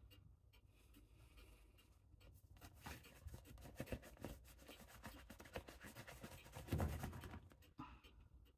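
Rubber work glove being pulled onto a hand and worked down over the fingers: a run of rubbing and crackling, loudest about seven seconds in, over a faint steady hum.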